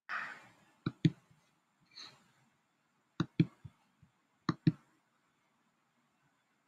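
Computer mouse buttons clicking in quick pairs, three times over a few seconds, after a brief hiss at the start.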